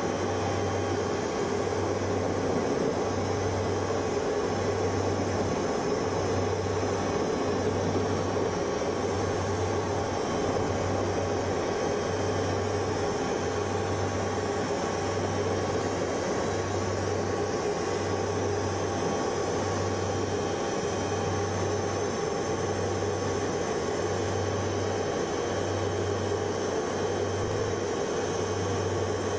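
Helicopter cabin noise in flight: a steady rush of engine and rotor noise, with a low hum that pulses about once a second.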